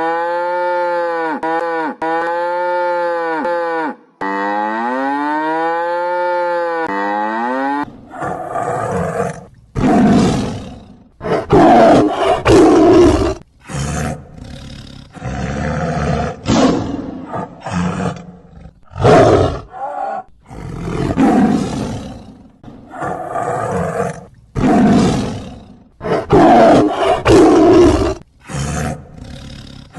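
Cow mooing for the first eight seconds or so, in a run of arching, rise-and-fall calls. It is followed by a lion roaring and growling in a series of loud, rough bursts, each a second or two long, with short gaps between them.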